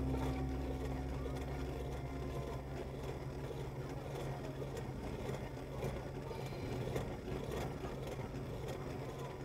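A vehicle engine running steadily at a low idle, a constant low hum, with faint street noise. The tail of a tune on a flute or pipes fades out in the first couple of seconds.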